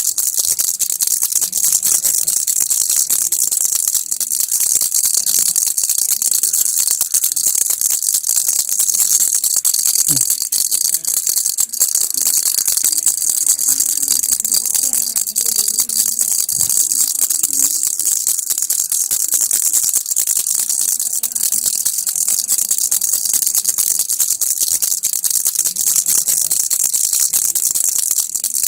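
Baby's toy rattle (kilukki) shaken steadily without pause, giving a dense, fast stream of bright, high clicks.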